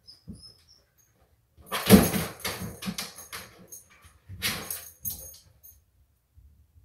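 A dog scrambling down from a window ledge onto things piled below: a heavy thump about two seconds in, then a run of scuffling and clattering, and another short burst of it a couple of seconds later.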